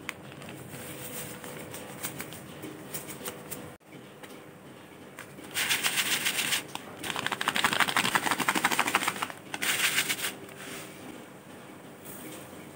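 Plastic seasoning packets crinkling and rustling as they are tipped and shaken out over a pot, with softer scattered clicks at first. About halfway through, a loud, dense crackle of rapid clicks begins and lasts about five seconds.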